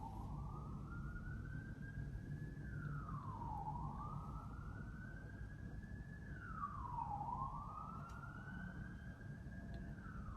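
Faint emergency-vehicle siren on a wail, its pitch climbing slowly and dropping more quickly, about three times, over a steady low rumble.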